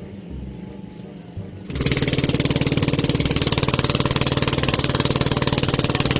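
Outrigger boat's engine running with a fast, even putter, starting loudly about two seconds in and stopping abruptly at the end.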